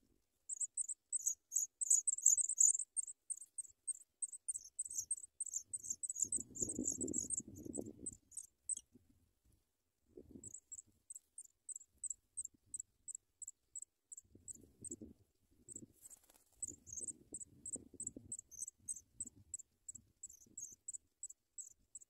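African pipit nestlings begging: rapid, very high, thin cheeps, several a second, louder in the first few seconds and breaking off for a moment about nine seconds in before resuming. Soft rustling of the nest grass comes and goes as the adult feeds them.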